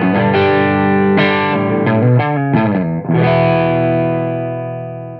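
Intro music on distorted electric guitar: a few struck chords, then a final chord from about three seconds in that is held and slowly dies away.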